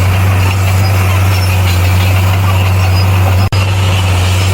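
Komatsu bulldozer's diesel engine running with a steady low drone, cutting out for an instant about three and a half seconds in.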